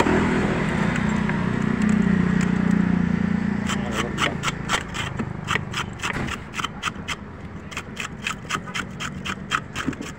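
A motorcycle passes close by for the first few seconds. Then a knife scrapes the scales off a milkfish against a wooden chopping block in quick, even strokes, about four a second.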